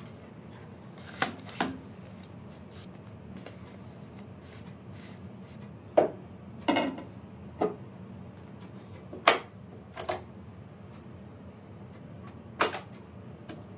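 Handling clicks and knocks as a vinyl record is taken from its sleeve and set on an Audio-Technica turntable's platter, with a sharp click near the end as a button on the turntable's front is pressed.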